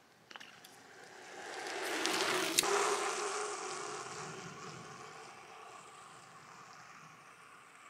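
A vehicle passing by: a hissing rush that swells over a couple of seconds, peaks, then fades away over the next few seconds, with a single sharp click near its loudest point.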